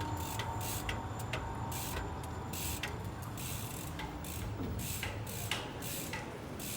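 Rear freehub of a wheelie bike ticking in short spells as the rider coasts between pedal strokes, over a steady low rumble of tyres on the road.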